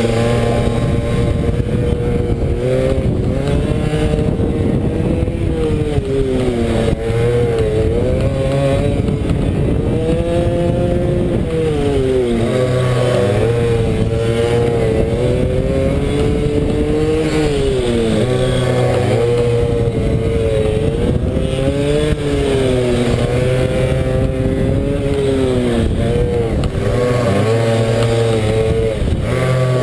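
Single-cylinder pit bike engine heard on board at racing speed, revving hard. It climbs in pitch as the rider accelerates out of each corner, then drops away as he rolls off for the next one, again and again.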